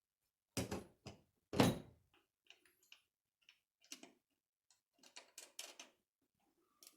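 Scattered clicks and knocks of chandelier mounting hardware being handled and fitted, three louder knocks in the first two seconds, then lighter ticks and small clusters of taps.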